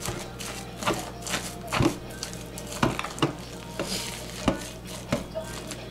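A spatula stirring and scraping thick liquid-soap paste in a crock pot, with irregular sharp knocks against the pot about once a second.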